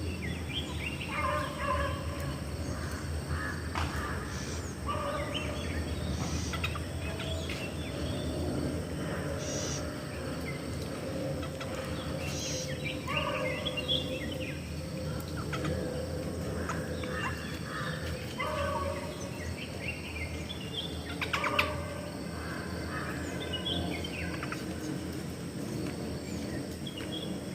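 Parrots calling: short calls repeated every second or two, over a steady low background rumble.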